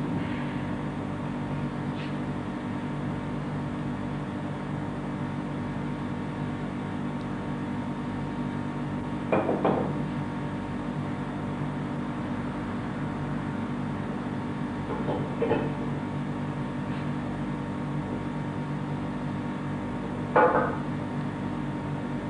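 Plaster mould sections knocking together three times as they are handled and fitted, over a steady low hum.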